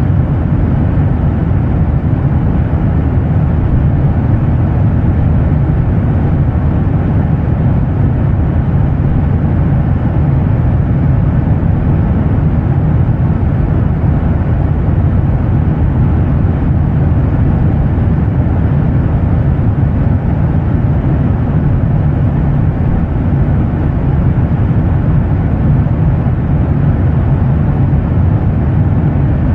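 Steady, deep drone of an airliner's jet engines: an even rushing noise, heaviest in the low rumble, with no change in pitch or level.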